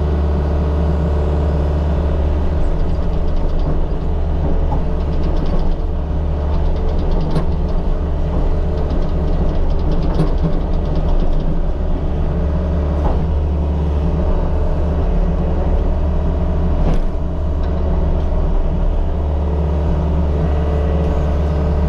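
Mini excavator's diesel engine running steadily at working revs while backfilling a trench, with a few short knocks from the bucket and dirt.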